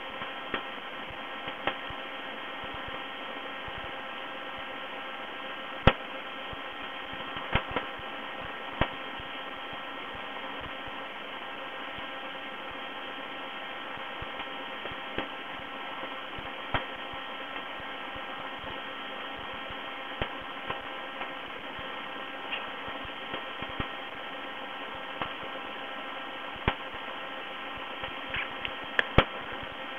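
Steady electrical hum made of several level tones, with scattered sharp clicks at irregular times, the loudest about six seconds in and a cluster near the end.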